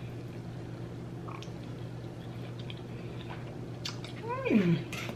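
A person chewing a mouthful of food, with a metal fork clicking a few times against the sheet pan, over a steady low hum. Near the end comes one short vocal sound that slides up and then down in pitch.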